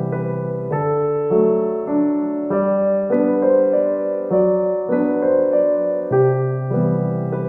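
Background piano music: a gentle keyboard melody over repeating low chords.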